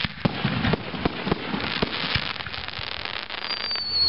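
Aerial fireworks going off: a rapid, irregular run of bangs and crackles from bursting shells, with a high whistle sliding slightly downward near the end.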